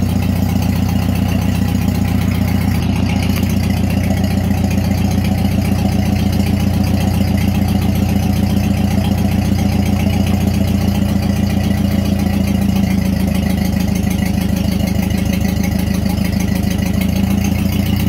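Ford 8N tractor's four-cylinder engine idling steadily, with the PTO engaged and driving the Sherman backhoe's hydraulic pump.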